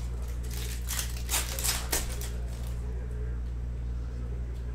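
Cellophane wrapper of a trading-card cello pack crinkling as the cards are slid out, in a cluster of crackles about half a second to two seconds in. A steady low electrical hum runs underneath.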